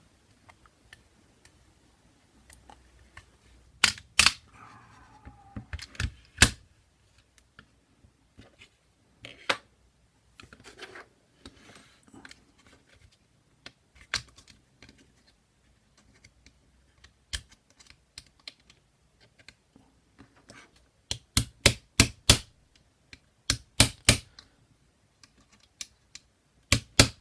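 Small hammer tapping a pin into a KWA M11 airsoft lower receiver: scattered single sharp taps and pairs, then quicker runs of about half a dozen taps in the last third.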